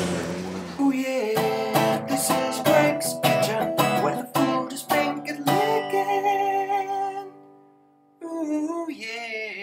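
Background music: acoustic guitar strummed and plucked in ringing chords, fading out about eight seconds in before a short passage starts again.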